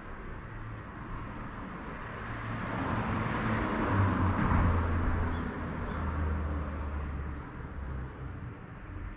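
A motor vehicle passing by: its tyre and engine noise swells to a peak about halfway through and then fades, over a low engine hum.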